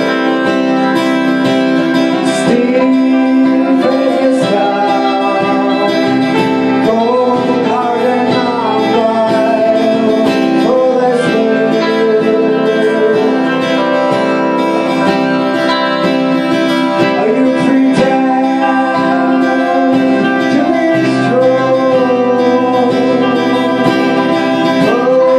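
Live song: a man singing over a strummed acoustic guitar, with an electric guitar playing along.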